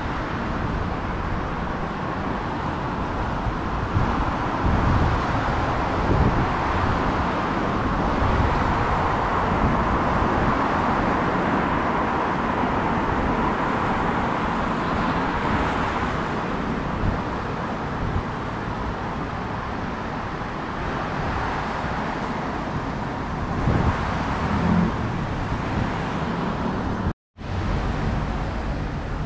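City street traffic: a steady noise of cars passing on a wet road. The sound cuts out for a moment near the end.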